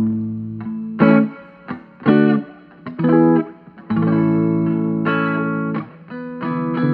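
Capozzoli Cassini electric guitar with PAF humbuckers played through a 5-watt 6V6/12AX7 tube amp into a 10-inch speaker. Short struck chords come about a second apart, then a chord rings for about two seconds, and more chords follow near the end.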